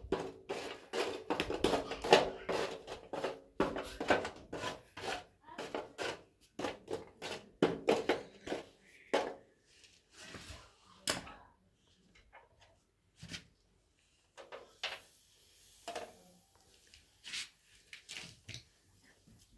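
Clicks and knocks of cooking gear being handled at a charcoal grill: metal skewers knocking on the steel grill tray and a plastic bottle being set down. They come thick and fast for about the first ten seconds, then turn sparse.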